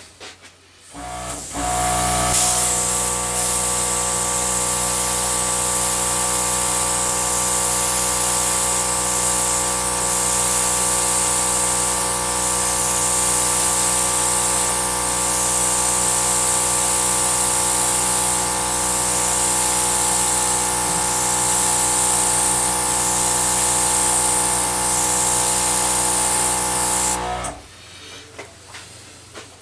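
Electric air gun blowing air: a motor running steadily under a strong rush of air. It switches on about a second in and cuts off near the end.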